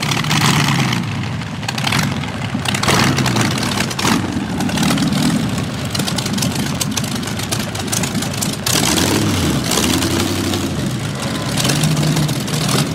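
Streamliner C-16's inline sixteen-cylinder engine, built from two Buick straight-eight engines joined end to end, running at low speed as the car drives slowly past. Its pitch dips and then rises with the throttle a few seconds before the end.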